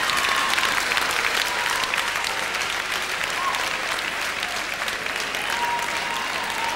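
Audience and stage applause, a steady dense clapping that eases slightly near the end.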